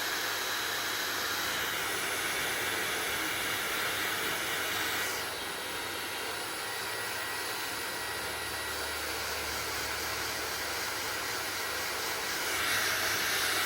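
Hair dryer blowing with a steady rushing whoosh; about five seconds in the sound drops a little and changes tone, and it grows louder again near the end.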